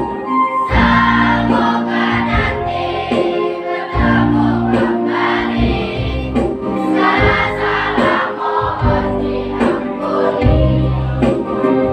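A school choir of sixth-grade pupils, mostly girls, singing a song together in held, sustained notes, with a sustained lower part beneath the voices.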